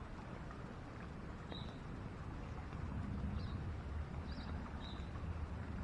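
A small bird chirping four short, high notes over a steady low rumble.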